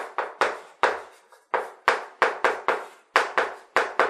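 Rapid, irregular sharp taps of writing strokes on a board, about four a second.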